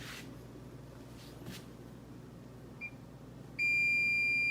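Electronic beep from a newly powered-up Bosch 800 Series dishwasher: a faint short chirp about three seconds in, then one loud, steady, high-pitched beep lasting about a second near the end.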